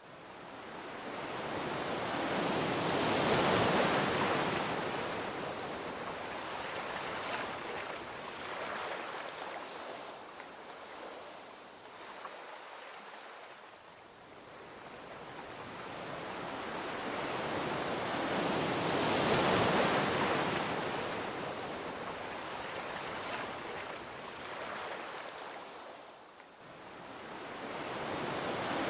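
Gentle ocean waves washing onto a beach: a soft rush that swells and recedes slowly, with two broad surges about sixteen seconds apart and a new one building near the end.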